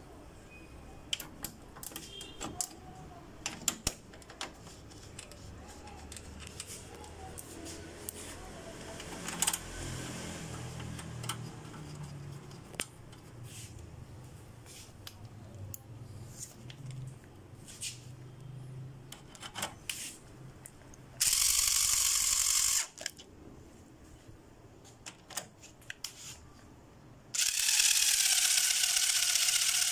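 Scattered light clicks and knocks of metal parts being handled, then a Total cordless screwdriver whirring in two runs: about a second and a half roughly two-thirds in, and again near the end, driving bolts into the car's front radiator support.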